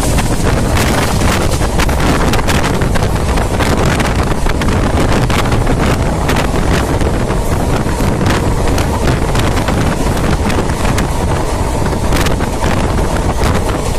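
Indian Railways passenger train running at speed, heard from an open coach door or window. Wind buffets the microphone over a steady low rumble, and the wheels click and rattle on the track throughout.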